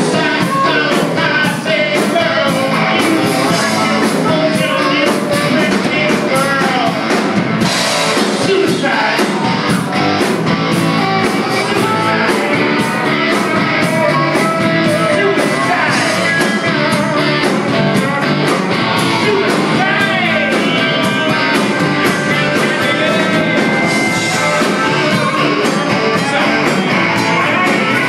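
Live rock band playing loud, with electric guitars over a steady drum-kit beat; lead guitar lines bend up and down in pitch.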